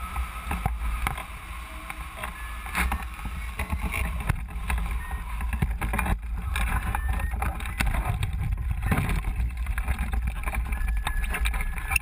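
Wind buffeting a small camera microphone mounted on a hang glider: a steady low rumble with frequent knocks and crackles.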